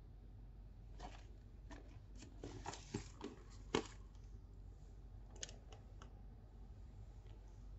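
A new handbag in its plastic wrapping being handled: scattered rustles and light clicks, the sharpest click a little under four seconds in, with a few more around five and a half seconds.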